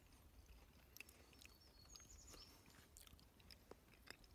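Near silence with faint mouth clicks of a person chewing a leaf of oxalis (wood sorrel), and a brief high chirp about two seconds in.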